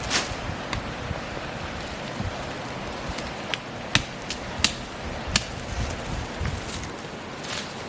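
Irregular sharp clicks and knocks, about ten of them and loudest between about four and five and a half seconds in, over a steady rushing background.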